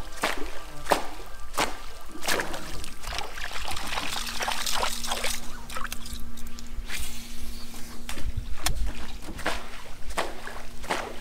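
Water splashing and trickling, with a run of irregular short, sharp splashes.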